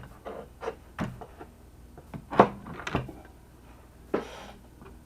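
Several sharp clicks and knocks of small parts and hand tools being handled, the loudest about two and a half seconds in, with a short rustle near the end.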